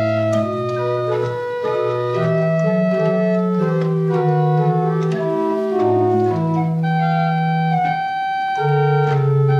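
Church pipe organ playing a slow piece in held chords, over a bass line that moves to a new note every second or so.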